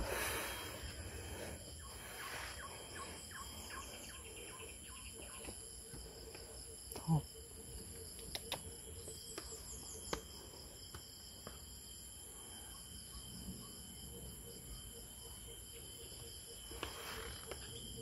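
Forest insects buzzing, several steady high-pitched tones held throughout. A brief thump comes about seven seconds in, and a few faint clicks are scattered through.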